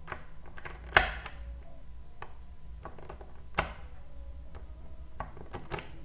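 Small magnetic balls clicking and snapping together as one sheet of balls is laid onto another. There is a run of sharp clicks, with the loudest snap about a second in, another strong one at about three and a half seconds, and a few quick clicks near the end.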